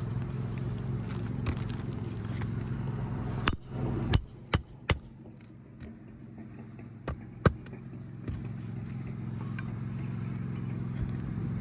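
A hammer driving roofing nails into asphalt shingles: four quick ringing metal strikes about three and a half seconds in, then two more a few seconds later, over a steady low hum.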